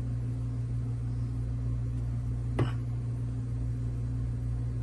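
Steady low electrical hum with no change in pitch, and one short tap about two and a half seconds in, as a spoon meets an aluminium idli plate while batter is poured.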